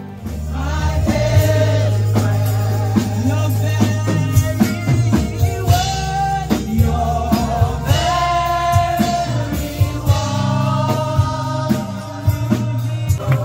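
Gospel praise-and-worship song: a singer holding long, gliding notes over a band's steady bass and drums.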